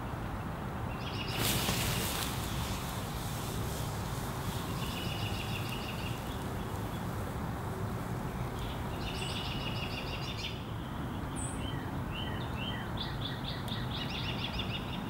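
Whiskey poured onto a backyard fire pit hisses briefly as the flames flare up, about a second and a half in. Afterwards small birds sing short, fast trilled phrases several times over a steady low background hum.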